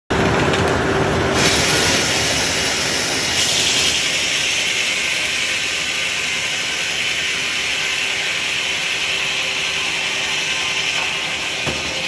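Chainsaw running steadily under load, cutting into a log; the high rasp of the chain through the wood grows stronger after a second or two and again a few seconds in.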